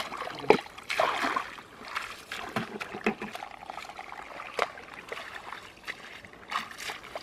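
Water splashing and sloshing irregularly as a person wades through shallow muddy pond water at the bank, with a sharp splash every second or so.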